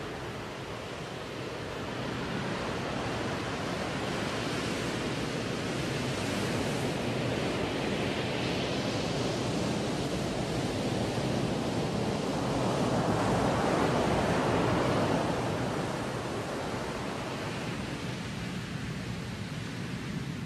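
Small waves breaking and washing onto a sandy beach, with wind rumbling on the microphone; the rush of noise swells louder about two-thirds of the way through, then settles back.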